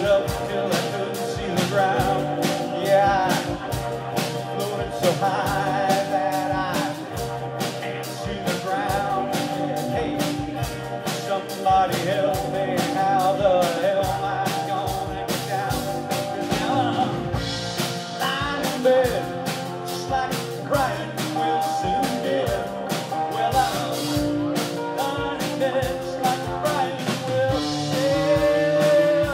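Live rock band playing: electric and acoustic guitars over a drum kit keeping a steady beat.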